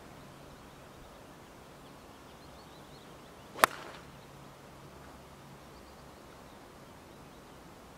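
A 7-iron striking a golf ball on the tee, once, about three and a half seconds in: a single sharp crack that dies away quickly. The golfer reckons he caught it thin, low on the clubface, and sent it over the green.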